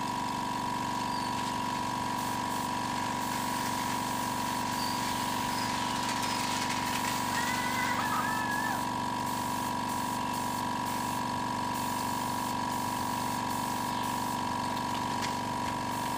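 Air compressor motor running steadily with a constant hum, feeding a spray gun whose air hisses as it sprays clear coat onto a bicycle frame.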